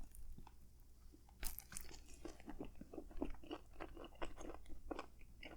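Close-miked chewing of a mouthful of soggy turkey, mashed potato and cranberry hoagie: faint, wet mouth clicks several times a second, picking up about a second and a half in.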